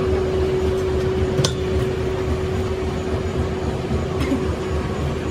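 Workshop machinery running with a steady hum and low rumble, with a sharp metallic clink about a second and a half in and another a little after four seconds, as the steel axle shaft is handled.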